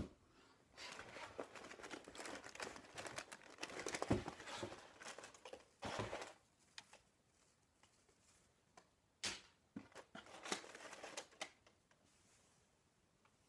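Paper packaging crinkling and rustling as it is handled, in bursts for the first six seconds or so and again from about nine to eleven seconds in.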